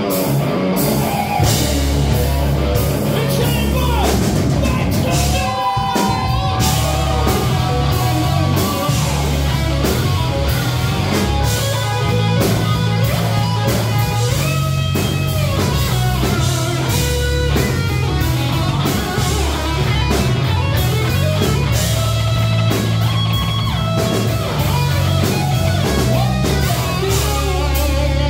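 A rock band playing live: a distorted electric guitar lead with bent, sliding notes over bass and drum kit.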